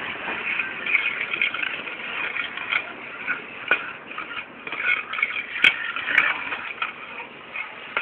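Small toy racket scraping and clattering on stone paving as a puppy drags and chews it: an irregular scratchy crackle with scattered small clicks and one sharp click about halfway through.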